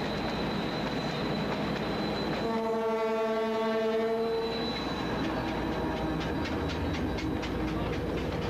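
A freight train passing close, a steady rumble throughout. A locomotive horn sounds one steady blast of about two seconds, starting about two and a half seconds in. After it, the wheels click over the rail joints as the wagons roll by, about three clicks a second.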